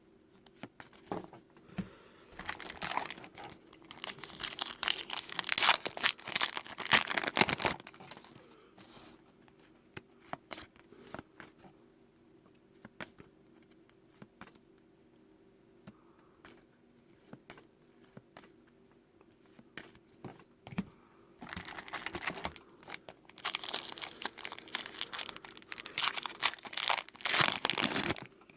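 Plastic or foil packaging crinkling as trading cards are handled, in two long bursts of crackling: one a few seconds in and another from about two-thirds of the way through to near the end. Light clicks of card handling fall in between.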